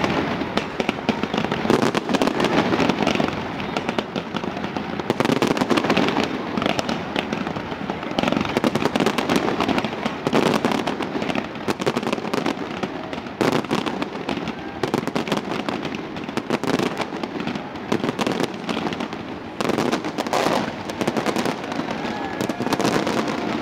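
Large fireworks display: an unbroken, rapid barrage of launches and bangs with crackling.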